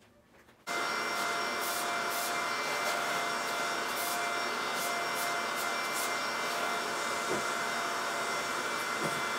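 Vacuum cleaner switched on about a second in, its motor then running with a steady whine while the hose attachment is used, with a couple of light knocks near the end.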